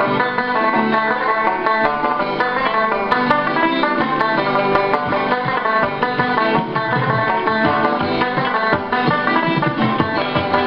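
Solo Irish tenor banjo picking an Irish polka melody, a steady stream of quick plucked notes.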